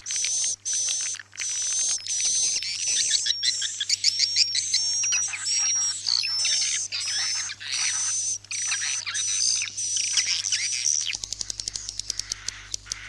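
Edible-nest swiftlet calls: a dense, steady run of high twittering chirps with whistled notes. Near the end they give way to a rapid train of clicks. This is a 'suara inap' roosting-call recording, played in swiftlet houses to coax the birds to roost.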